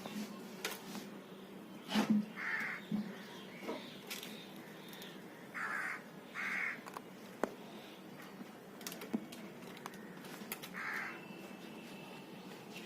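A bird calling four times, each a short harsh call of about half a second, with scattered clicks and knocks in between.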